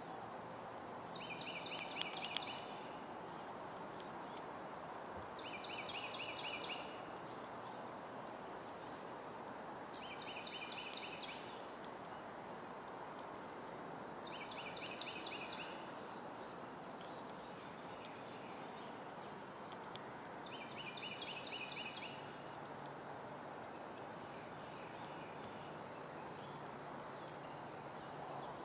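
Steady high-pitched drone of insects such as crickets, with a short pulsed trill of another caller repeating about every four to five seconds. Two sharp clicks sound about two seconds in.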